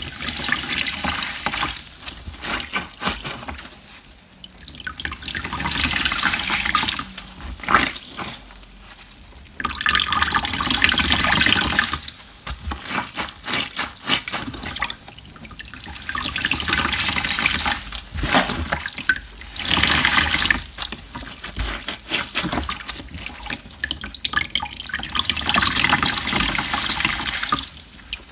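Water pouring and splashing in repeated surges a few seconds long, with quieter trickling and dripping between them.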